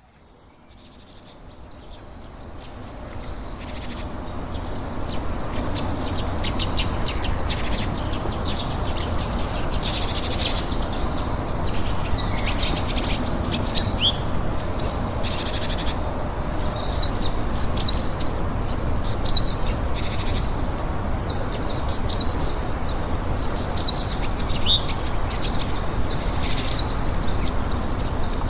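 Songbirds chirping and singing in many quick, high calls over a steady background hiss. The sound fades in over the first few seconds.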